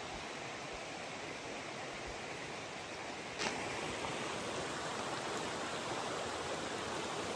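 Steady rush of stream water running over rocks, with one sharp click about three and a half seconds in, after which the rushing is a little louder.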